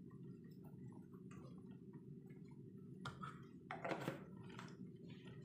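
Faint small clicks and taps of a seasoning packet being handled and emptied into the cooking pot, a few louder about three to four seconds in, over a steady low hum.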